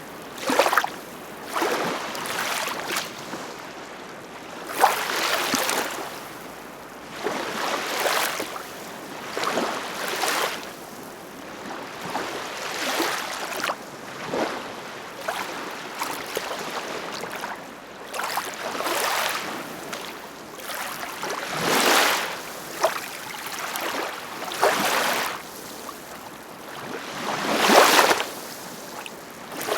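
Ocean waves breaking and washing in, a hissing surge every one to three seconds, with the loudest wave close to the end.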